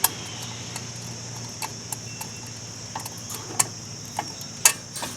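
Scattered light clicks and taps of small metal parts and tools being handled while a fan motor is reassembled, about half a dozen in all, the loudest near the end, over a steady high hiss.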